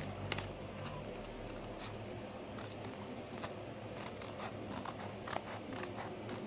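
Scissors cutting along a pencil outline in white paper: a run of short, quiet snips, roughly two a second.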